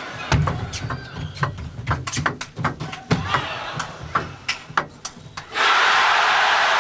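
Table tennis rally: the ball clicks quickly and irregularly off the bats and the table for about five seconds, with low thuds under the clicks. About five and a half seconds in, the crowd breaks into loud applause all at once as the point ends.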